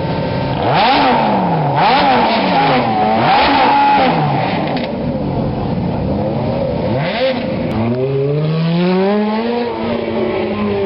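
A sports car engine revving: about four quick blips where the pitch climbs and falls back, then a longer, slower climb in revs that drops off near the end.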